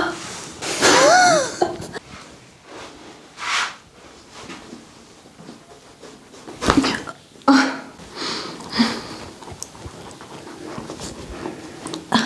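A woman lets out a short voiced cry about a second in, rising then falling in pitch. It is followed by several heavy breaths in and out.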